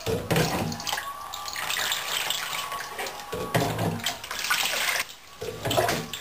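Bath water splashing and being poured over a baby in a tub, coming in several surges with low bumps.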